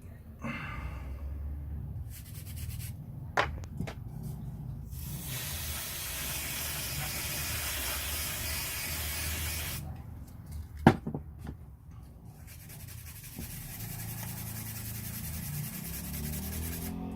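Aerosol brake cleaner spraying in one steady hiss lasting about five seconds, washing solder flux off a freshly soldered ECU circuit board. Fainter hissing and rubbing come before and after it, with two sharp knocks, one a few seconds in and the loudest just after the spray stops.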